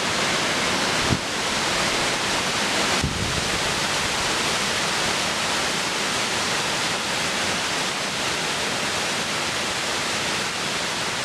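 A tall waterfall swollen with spring runoff, a steady, dense rush of falling water crashing down.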